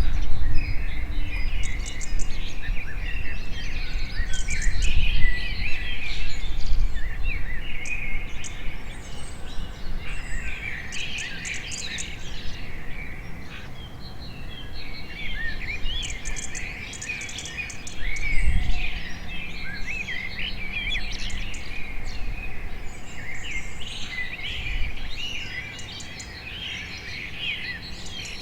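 A dense chorus of many small birds chirping and twittering at once, the calls overlapping without pause, over a low rumble that is strongest in the first several seconds.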